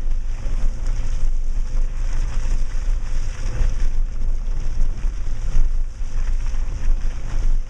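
Heard from inside the cabin, a Subaru Outback crawls over a rough, muddy dirt track: a steady low rumble of engine and tyres with constant small knocks and rattles from the bumpy ground.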